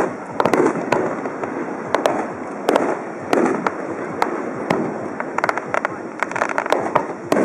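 Fireworks display: aerial shells bursting in a quick series of sharp bangs and pops, several a second, with a denser run of rapid pops about five to seven seconds in.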